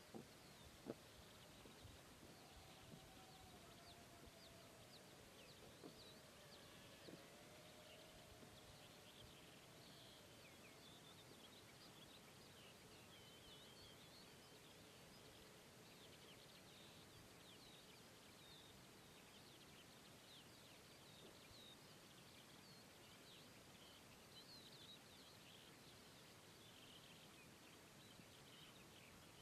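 Faint outdoor ambience over a steady hiss: small birds chirping and twittering again and again, with many short high calls throughout.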